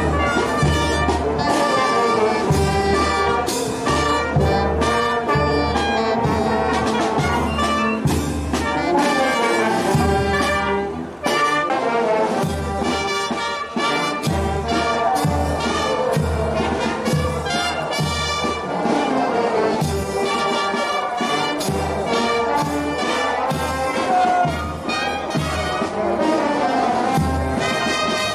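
Brass band playing a lively tune over a steady bass beat of about two beats a second.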